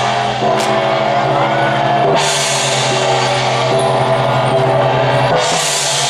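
Loud temple-troupe accompaniment music: drums and cymbals under a held, stepping melody line, with a cymbal crash about two seconds in and another near the end.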